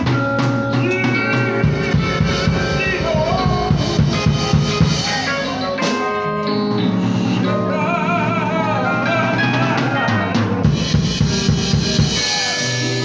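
Church music: long held keyboard chords over a drum kit beat, with voices singing. The drum strokes come in runs during the first few seconds and again near the end.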